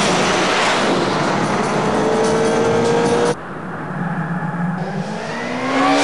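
Honda CBR1100XX Super Blackbird's inline-four engine running hard at speed under a rush of wind noise, its note rising slowly. The sound cuts off abruptly just past halfway, then an engine note climbs in pitch near the end, with music underneath.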